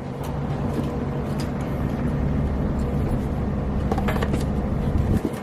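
A motor running with a steady low hum that stops abruptly near the end, with a few light clicks just before it stops.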